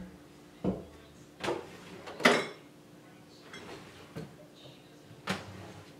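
Sideboard cabinet doors and drawers being opened and shut, with things knocked about inside as they are put away. It comes as a series of about six sharp knocks and clunks, the loudest a little over two seconds in.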